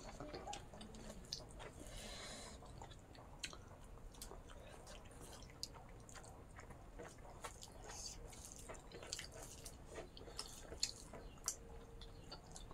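Two people chewing a meal of pork and rice: faint, irregular wet smacks and small mouth clicks, with a short rush of noise about two seconds in.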